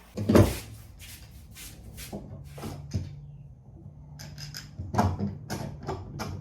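A wooden knock, then short scraping strokes of sandpaper worked back and forth on the bottom edge of a wooden wing spar, a few strokes a second.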